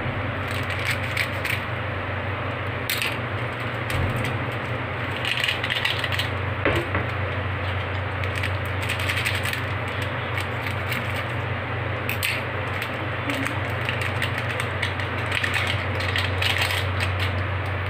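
Water and oil bubbling and crackling in a pan of broken instant noodles on the stove: a steady hiss with scattered sharp crackles and clicks, over a low steady hum.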